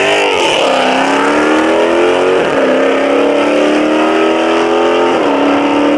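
A car engine accelerating hard under load, its pitch climbing and then dropping back twice, at about two and a half and five seconds in, as it shifts up through the gears.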